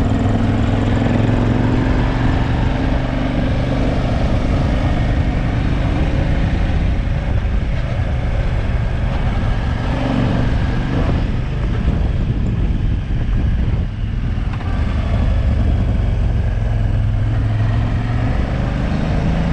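Motorcycle engine running steadily while riding, with a dense rush of wind noise over it; it eases off briefly about two-thirds of the way through.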